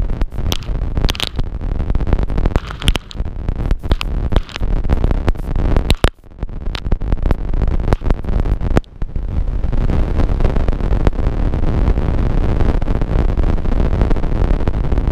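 Wind rushing over a helmet-mounted microphone on a moving motorcycle. The noise is choppy and broken up for the first half, then settles into a steady rush from about nine seconds in.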